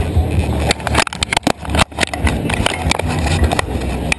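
A remote-piloted robot driving over asphalt, heard from its on-board camera: a steady low drone from the drive and wheels, with rapid clatter and knocks that come thickest about a second in.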